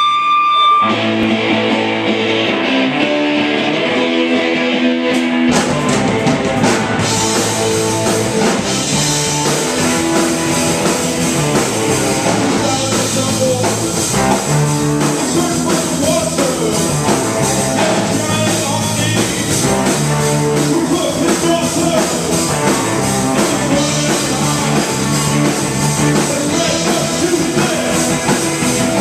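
Live rock band playing: electric guitars alone for the first five seconds or so, then the drum kit comes in and the full band plays on with bass and a male lead vocal.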